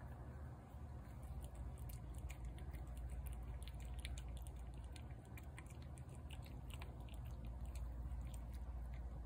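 A cat chewing and lapping up canned cat food from a plate, with many small irregular clicks and smacks. A steady low hum runs underneath.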